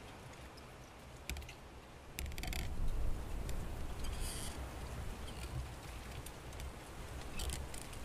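Outdoor ambience: wind rumbling on the microphone, stronger from about two seconds in, with scattered small clicks and rustles.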